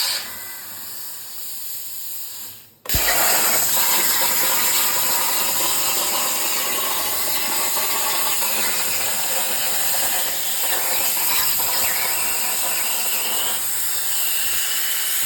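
Plasma torch on a CNC plasma table cutting 18-gauge sheet metal: a steady hiss, quieter for the first few seconds and then suddenly much louder.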